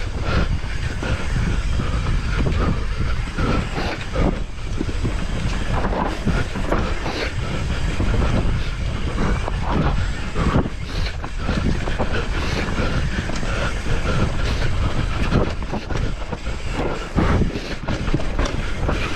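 Mountain bike ridden over a rough dirt trail: a continuous low rumble of tyres over dirt and stones, with frequent rattles and knocks from the bike.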